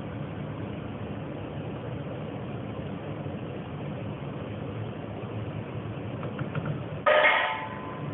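Steady low rumble from the stovetop as the pot of meat in tomato sauce cooks. About seven seconds in comes one sharp, ringing clink that quickly dies away.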